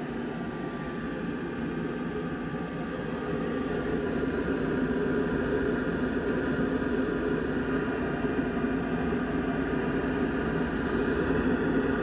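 Steady rushing drone of an external exhaust fan pulling air through a Glowforge Plus laser cutter, with a faint steady hum in it. It grows louder over the first few seconds as the microphone moves in over the gantry inside the machine.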